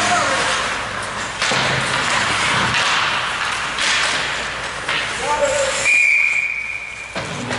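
Ice hockey play: skates, sticks and puck knocking against the noisy rink background, then about six seconds in a referee's whistle blows one steady blast lasting about a second, signalling a stoppage of play after a scramble at the net.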